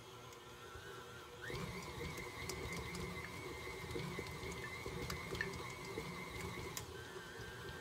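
KitchenAid stand mixer running with its flat beater through a thick dough in a stainless-steel bowl: a steady motor whine with frequent light clicks. The whine steps up in pitch and gets louder about a second and a half in, then drops back down near the end.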